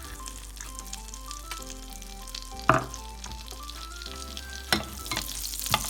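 Butter and sunflower oil sizzling in a frying pan, the hiss growing near the end. There are three sharp knocks, the loudest a little under three seconds in, over soft background music.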